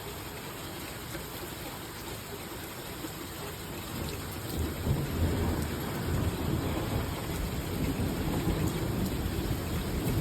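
Heavy rain falling steadily, with a low rumble of thunder building from about four seconds in and rolling on.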